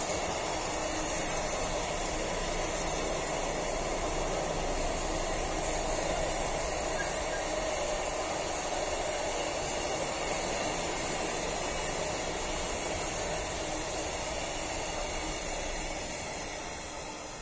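Container wagons of a freight train rolling past on the rails, a steady running noise of wheels on track that fades near the end as the last wagon goes by.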